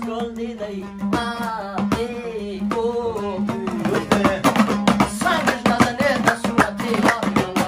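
Afghan dambura song: a man sings a wavering melody over rapidly strummed dambura and hand-drum strokes, with a steady low note held underneath. The singing stands out through the first half; after that, quick strumming and drumming take over.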